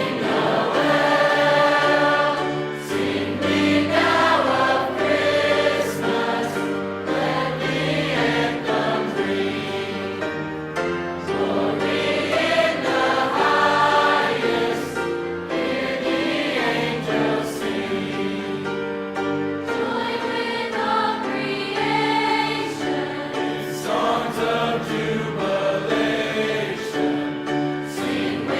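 High school choir singing with held notes, the low parts coming in about three seconds in.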